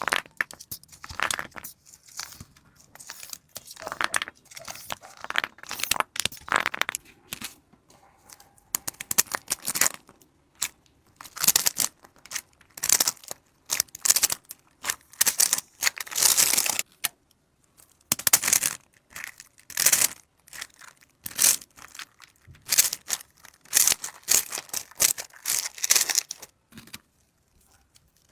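Plastic packaging crinkling and tearing in irregular bursts of handling, as a squishy toy is unwrapped.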